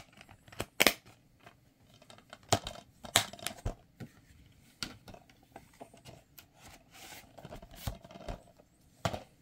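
Plastic DVD case being handled: the disc pressed onto its centre hub, the case snapped shut and turned over, giving a string of irregular sharp plastic clicks and snaps, the loudest about a second in.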